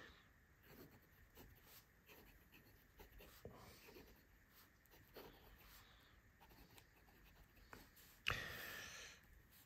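Medium nib of an Endless Creator retractable fountain pen scratching faintly across notebook paper as a line of words is handwritten. The writer finds the nib a little rough, with a lot of feedback. A brief louder noise comes about eight seconds in.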